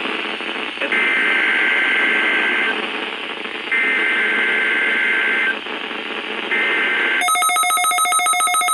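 Emergency Alert System SAME header: three bursts of two-tone digital data screech over radio static, the third cut short about seven seconds in as an electronic decoder starts a rapid, repeating beeping alert.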